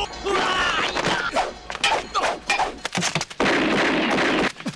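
Action-film fight sound effects: shouts and a run of sharp hits and crashes, then a loud noisy burst lasting about a second near the end that cuts off abruptly.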